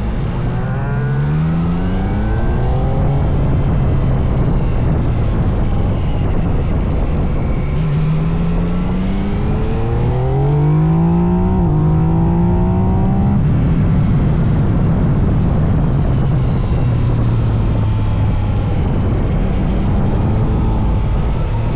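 Yamaha MT-09 SP's three-cylinder engine running under load, rising in pitch as it accelerates early on and again in two climbs around the middle, with a sudden drop in pitch at a gear change between them. The engine runs at a steadier pitch in between, over a constant rush of noise.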